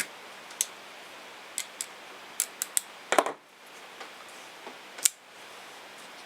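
Sharp clicks and a knock from a stainless steel spring-assisted folding knife being handled. The loudest is a single crisp click about five seconds in.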